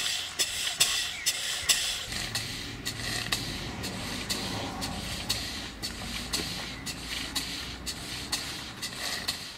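Single-cylinder model steam beam engine running under live steam, its exhaust beats and valve gear ticking in a steady rhythm of about two a second. From about two seconds in, a low steady rumble runs beneath it.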